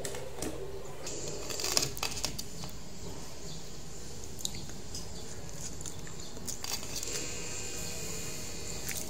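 Crunchy bite into a toasted wholemeal egg sandwich about two seconds in, followed by sparse chewing and light clicks over a low steady hum.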